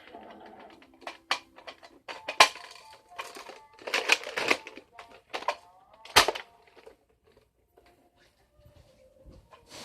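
Irregular plastic clicks and clacks of a Nerf blaster being handled, with two sharper knocks about two and a half and six seconds in. Faint music or voices run underneath.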